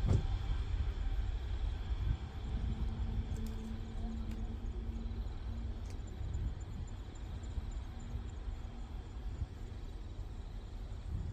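Jet engines of a Korean Air twin-engine airliner on its takeoff run, a deep low rumble that is loudest at first and slowly fades as the plane moves off down the runway.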